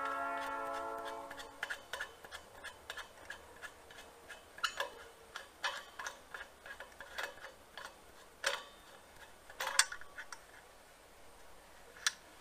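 Irregular light clicks and metallic taps from a brass gas-cylinder regulator being handled and its fittings turned. A sustained tone fades out in the first second and a half.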